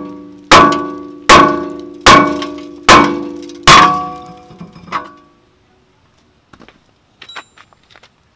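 Rusted rear brake rotor of a VW GTI Mk5 struck hard five times, about a blow every 0.8 s, each strike ringing out metallically and dying away, then one lighter knock. The rotor is rusted onto the hub and being knocked loose.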